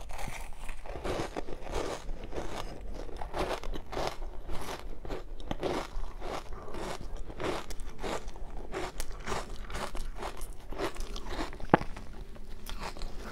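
Close-up crunching as a mouthful of powdery frozen ice dusted with matcha powder is bitten and chewed, a dense run of crisp crunches several times a second. One sharper crack comes near the end.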